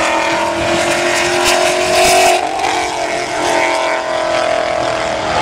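Engine noise: a steady drone of several held tones under a rushing noise, swelling briefly about two seconds in.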